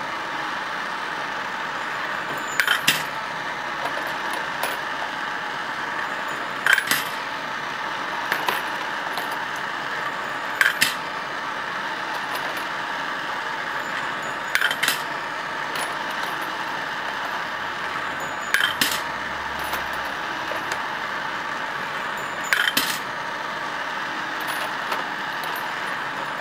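Two gas torch flames hissing steadily on a rifle-case annealing machine. About every four seconds a sharp metallic clink comes as the machine cycles a .308 brass case through, with fainter clicks in between.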